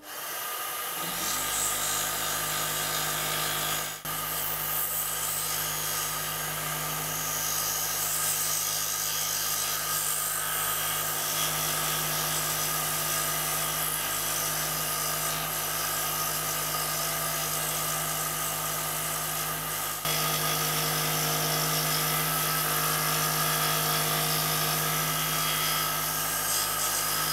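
Scroll saw starting up about a second in, then running steadily as its fine blade cuts around the outline of a thick wooden block.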